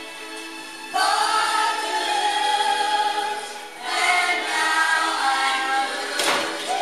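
Choral singing played from a vinyl LP on a Fisher MT-273 turntable: held sung notes that swell louder about a second in, dip briefly, then return.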